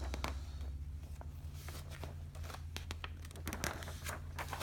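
Paper instruction booklet being leafed through: scattered rustles and crinkles of the pages being handled.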